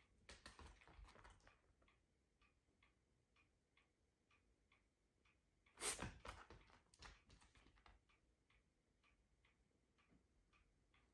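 Faint, regular soft clicks from a Shiba Inu at a couple a second, with a brief louder rustle about six seconds in as the dog whips its body around. The clicks that follow are the dog lapping at its water bowl.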